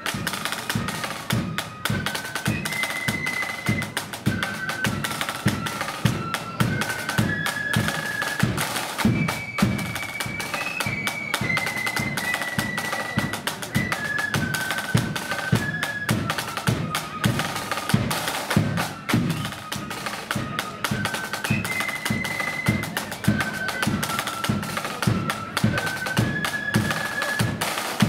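A marching flute band playing. The flutes carry a stepped tune in unison, and the phrase comes round again about halfway through. Side drums and a bass drum keep a steady march beat underneath.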